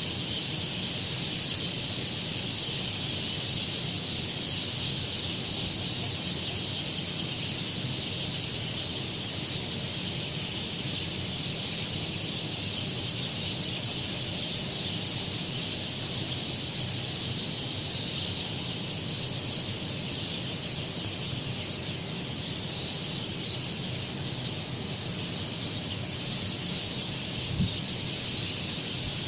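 Dense chorus of many small birds chirping continuously at dawn, an even, unbroken high-pitched twittering, over a soft low background wash, with a single brief low thump near the end.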